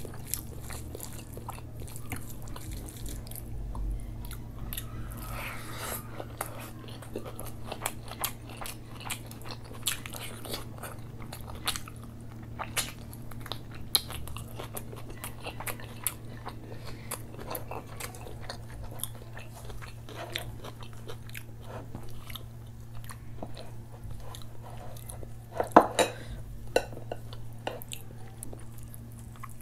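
Close-up chewing and biting sounds, with wet mouth smacks and clicks, from eating rice and butter chicken curry by hand. A low steady hum runs underneath, and a louder burst of crackling comes near the end.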